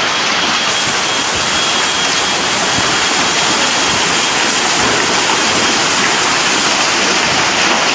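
Heavy downpour of rain: a loud, steady rush with no letup.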